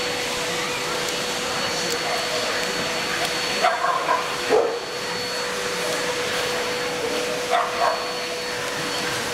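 Dogs barking in short bursts: a few barks about four seconds in and two more near the end. Under them runs a steady rushing hall noise with a constant hum and a faint high whine.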